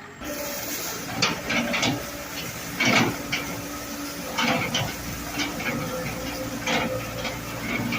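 Skid steer running a bedding spreader attachment: a steady engine and hydraulic hum, broken by irregular sharp knocks and clatter as the spreader works.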